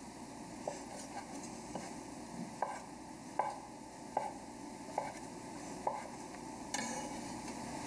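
Chef's knife cutting brioche bread into cubes on a wooden cutting board: about eight knocks of the blade on the board, a little under a second apart, then a short rustle near the end.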